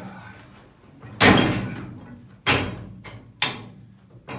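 Knocks and bangs from a yard wagon and a wooden board being handled. The loudest bang comes about a second in and takes nearly a second to die away. Two more bangs follow about a second apart, with a small knock near the end.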